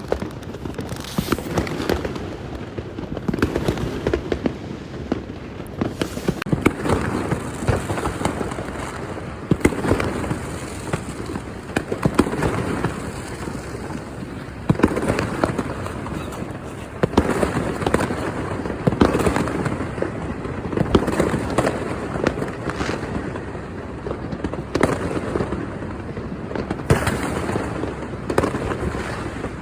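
Many fireworks going off at once: a continuous barrage of bangs and crackling firecrackers, with frequent sharp cracks overlapping one another.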